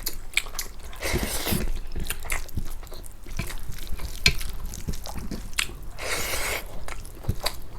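Close-miked chewing of pork and rice, with wet mouth clicks and smacks throughout and two longer hissing noises, about a second in and about six seconds in.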